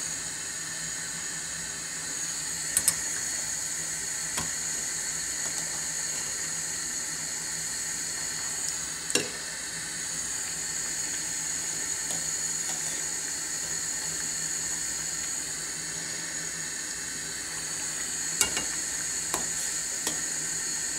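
Sugar syrup boiling steadily in a steel pot, a continuous bubbling hiss. Several sharp clinks of a steel spoon against the pot and a glass bowl as the soft paneer balls are lifted out.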